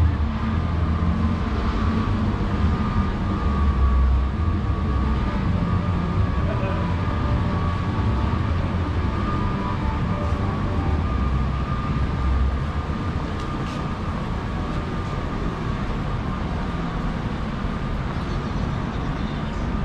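Train running on the elevated railway viaduct overhead: a low rumble that eases off about twelve seconds in.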